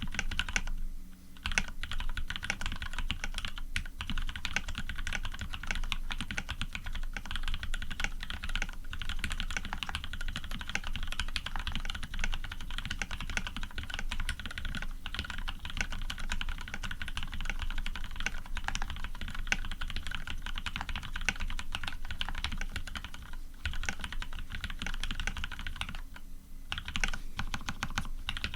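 Continuous rapid typing on a custom Orion v2.5 mechanical keyboard with Cherry Retooled Black linear switches lubed with Krytox 105, PBT keycaps and an aluminium plate. It is a dense run of keystrokes, with short pauses about a second in and again near the end.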